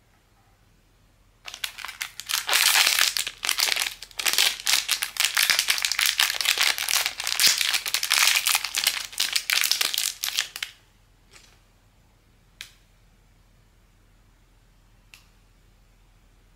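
Blind-bag packaging crinkling and crackling as it is handled and opened, for about nine seconds. Then come a few single light clicks.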